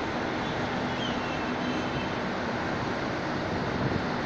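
Steady rush of city traffic noise with a faint steady hum underneath.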